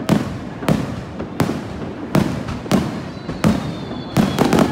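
Aerial firework shells bursting close overhead: sharp bangs about every two-thirds of a second, each trailing off in echo, then a quick run of several bangs near the end.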